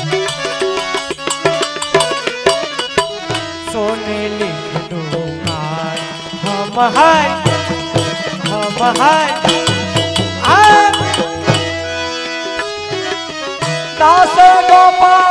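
Indian devotional folk music with tabla and percussion under a melody line. The melody has gliding, ornamented notes in the middle, and a long held note comes in near the end.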